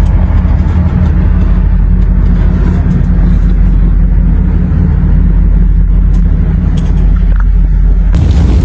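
Loud, steady low rumble of road vehicles, with a brighter hiss coming in abruptly about eight seconds in.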